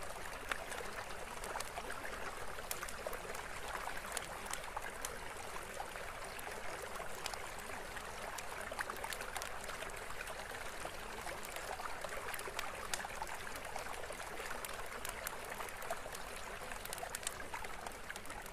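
Steady running water like a small stream: an even rushing hiss dotted with many small trickles and splashes.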